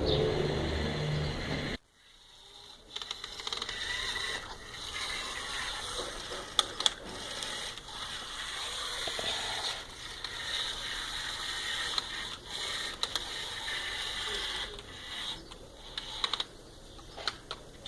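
Small electric motors and plastic gears of a Huina 1550 radio-controlled toy excavator running, a steady whine with scattered clicks. A louder, lower sound cuts off suddenly about two seconds in.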